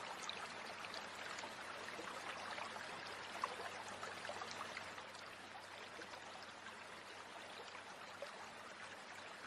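Small forest stream flowing steadily, with scattered light clicks and one sharper click about three and a half seconds in.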